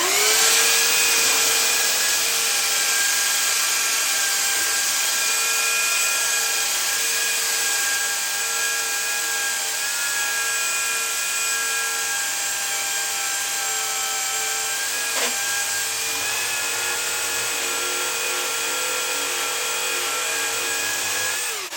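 Electric sander switched on, spinning up to a steady high whine as it works the wood, and winding down as it is switched off near the end; a single sharp knock about two-thirds of the way through. The owner calls this sander a piece of junk.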